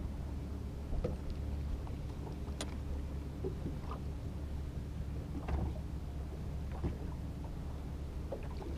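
Steady low rumble of wind and water around a small fishing boat on open water, with a faint steady hum and a few faint clicks and knocks.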